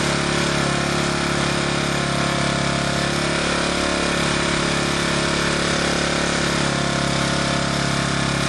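Small single-cylinder portable generator engine running steadily under a light electrical load, with its speed easing down slightly as the full-throttle RPM adjustment screw is turned.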